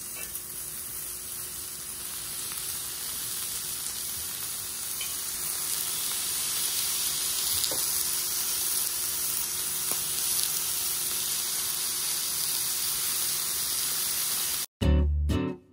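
Thin slices of meat sizzling on a hot round griddle over a portable gas stove, a steady hiss that slowly grows louder as more slices go on. It cuts off suddenly about a second before the end, and acoustic guitar music starts.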